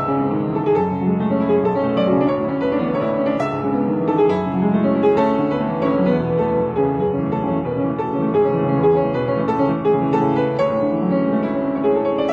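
Instrumental piano music, a steady flow of notes and chords.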